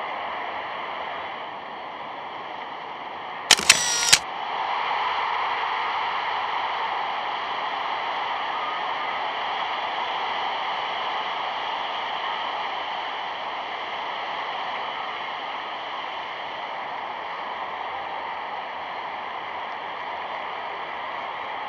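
Steady rushing noise, with a brief cluster of sharp clicks about three and a half seconds in, after which the noise runs a little louder.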